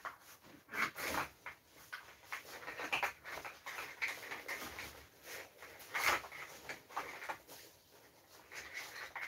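Hands rummaging in a cloth bag full of metal-rimmed glass gas-mask eyepiece outserts: rustling fabric with irregular clicks and clinks as the outserts knock together, the sharpest about a second in and about six seconds in.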